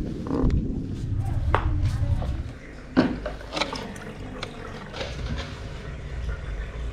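Wind buffeting the microphone, cutting off about two and a half seconds in. Then a sharp knock and scattered splashing and dripping of water as a small fish is lifted dripping from a bowl of water.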